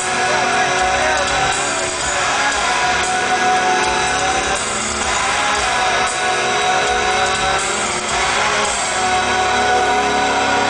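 Live rock band playing loud, with electric guitar and a voice singing, heard from the audience in a concert hall.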